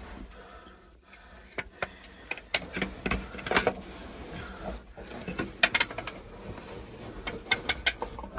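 Irregular scraping, rustling and small knocks of a person's body and clothing against rock while squeezing down through a narrow crevice.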